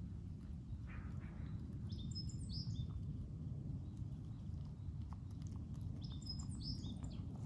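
Small birds chirping in two short bursts, a couple of seconds in and again near the end, over a steady low background rumble.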